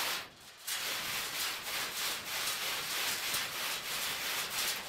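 Faint, steady rasping and rubbing of metal, with small irregular ticks, as the unbolted car body shell is lifted off its rotisserie mount.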